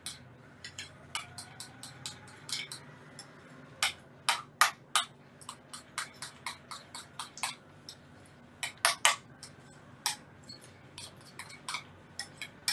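A spoon stirring thick sauce in a glass bowl, ticking and clinking against the glass in irregular strokes, with louder clinks about four seconds in and again around nine seconds.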